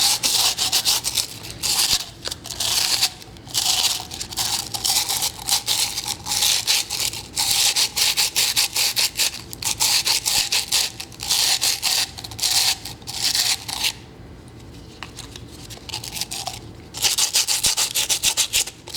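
Sandpaper rubbed by hand on a dry, unfired clay pot, in runs of quick back-and-forth strokes with short pauses and a longer pause about three-quarters of the way through. It is rounding off the corner on the pot's flattened rim.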